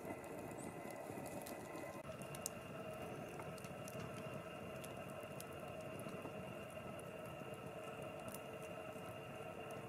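Wood fire burning with faint, scattered crackles and small sharp pops, one a little louder about two and a half seconds in, over a steady low background hum.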